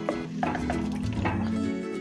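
Background music: a run of pitched notes over a bass line that changes about once a second.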